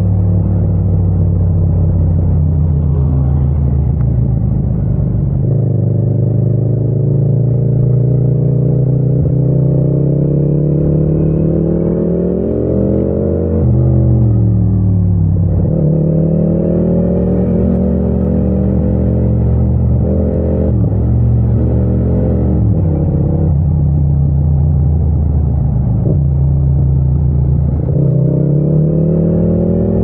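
Yamaha MT-07's parallel-twin engine running in second gear, its pitch rising as the throttle is opened and dropping as it is closed, several times over.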